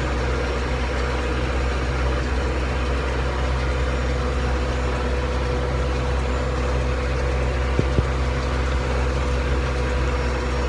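Valtra 100-horsepower diesel tractor running steadily under load as it pulls a working round baler through hay, heard from the driver's seat. It is a constant low drone with a faint steady whine over it. One brief knock comes about eight seconds in.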